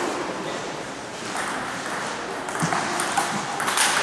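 Table tennis ball clicking against bats and table during play, a handful of sharp light hits at irregular spacing, mostly in the second half, over steady background noise.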